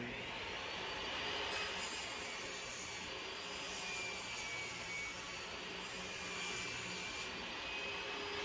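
Table saw ripping a solid pine board lengthwise into strips, the blade giving a steady whine as it cuts.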